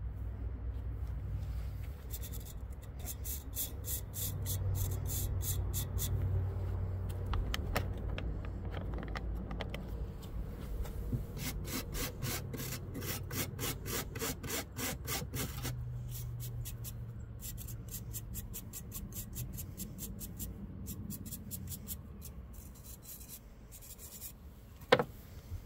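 A power-tool wire wheel scrubbing carbon off a chainsaw's exhaust deflector and spark arrestor screen: a steady motor hum under fast, rasping scrapes that come in several runs. The hum fades near the end, and a single sharp knock follows.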